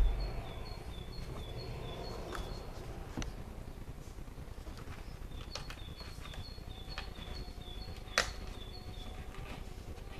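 A bird chirping in the background, a short two-note phrase repeated about three times a second in two runs. A handling bump sounds right at the start, and a sharp click comes about eight seconds in.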